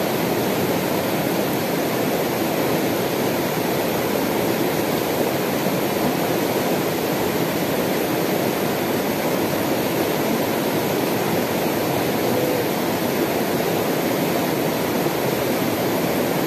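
Shallow mountain river rushing over rocks, a steady wash of water noise.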